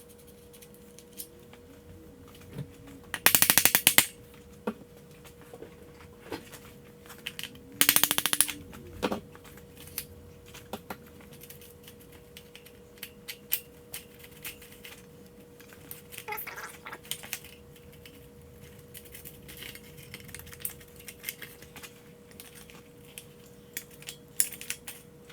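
Tools loosening bolts on a dirt bike's chassis: two short bursts of rapid rattling clicks, about three and eight seconds in, among scattered clinks of metal tools and parts, over a faint steady hum.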